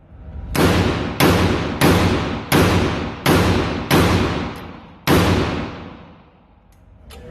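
10.5-inch AR-15 pistol firing cheap steel-cased ammunition semi-automatically: seven shots, six at a steady pace about two-thirds of a second apart, then a short pause before the last. Each shot rings off in a long echoing decay.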